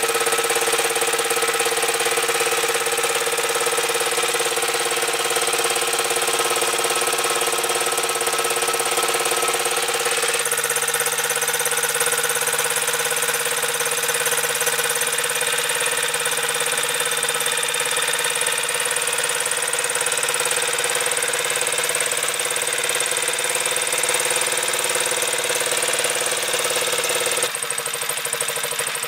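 1928 AJS K7 349cc single-cylinder overhead-cam racing motorcycle engine running steadily while the bike sits on its stand. The sound changes abruptly about ten seconds in and again near the end.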